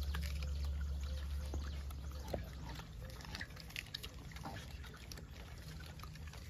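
Gray langurs biting and chewing apples: scattered wet crunches and clicks. A low rumble runs through the first couple of seconds.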